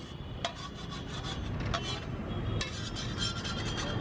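Steel spatula scraping in a series of irregular strokes across a flat tawa griddle, with butter and egg sizzling underneath.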